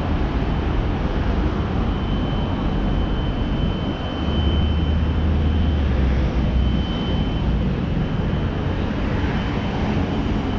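Steady city street noise, mostly traffic: a continuous low rumble that swells for a few seconds in the middle, with a faint thin high tone coming and going.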